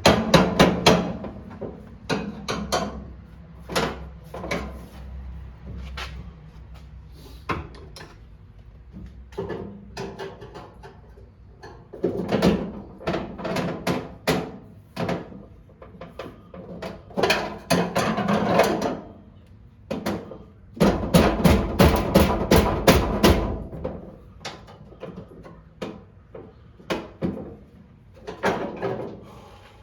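Tools and metal parts being handled during hands-on repair work: irregular knocks and clatters, with a quick run of rapid clicks about two-thirds of the way through.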